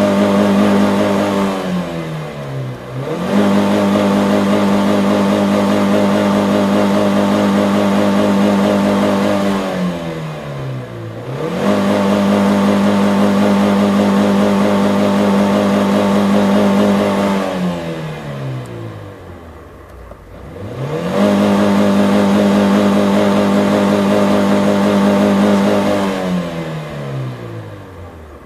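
Car engine revved and held at a steady high speed for several seconds at a time, falling back toward idle and climbing again three times, then falling away near the end.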